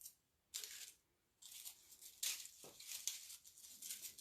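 Faint rustling and crinkling of craft flowers being handled and arranged by hand, in short irregular bursts, a brief one about half a second in and a longer run from about a second and a half on.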